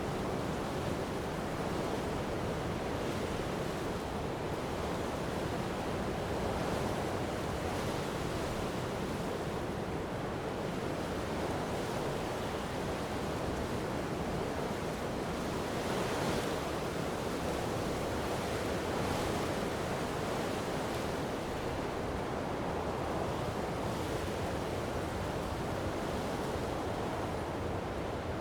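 Strong wind blowing along a coast over steady surf, a continuous rushing noise that swells slightly now and then, with waves breaking against the shore.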